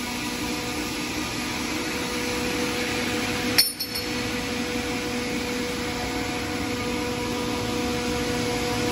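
Deburring machine running steadily with a hum as it takes large slag off laser-cut parts. About three and a half seconds in, a single sharp clink rings briefly.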